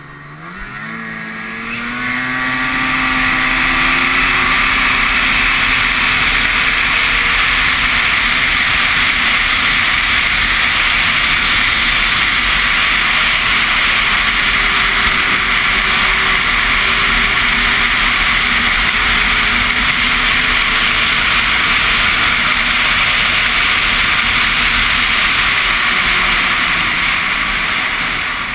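Ski-Doo snowmobile engine revving up, its pitch climbing over the first two seconds. It then runs steadily at speed with a loud, steady rushing hiss.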